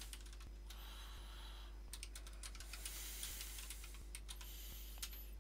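Faint computer keyboard typing: an irregular run of key clicks as a shell command is typed.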